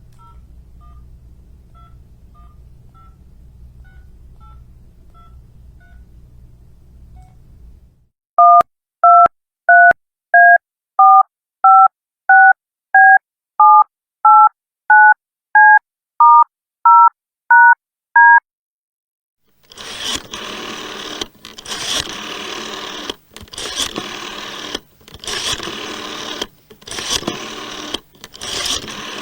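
Phone keypad touch-tones (DTMF), each press a short two-note beep. They are faint over a low hum at first, then a run of about fifteen loud beeps at a steady pace. Near the end they give way to a loud, noisy, stop-start sound.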